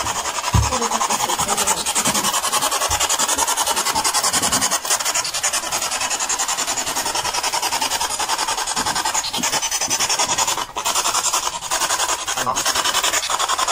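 Spirit box sweeping through radio stations: a steady hiss of radio static chopped into fast, even pulses. A short low bump comes just after the start, and the static dips briefly near the end.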